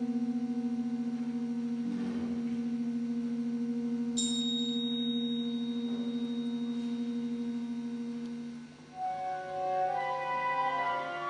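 Chamber ensemble playing slow contemporary music: one long held low note, joined about four seconds in by a thin high tone. Near the end the held note stops and several instruments come in with overlapping sustained notes.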